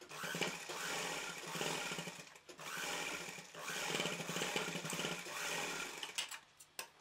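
Domestic sewing machine running at a fast, even stitch, putting a second reinforcing line of stitching along a seam of cotton fabric. It dips briefly about two and a half seconds in, stops about six seconds in, and is followed by a few light clicks.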